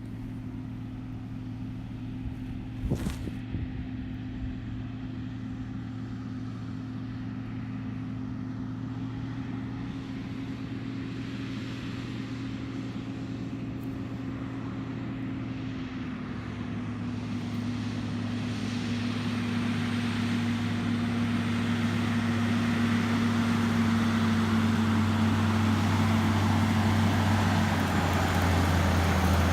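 Agco Star 8360 tractor's diesel engine running steadily as it approaches, growing louder through the second half, its pitch dipping slightly about halfway. A short knock about three seconds in.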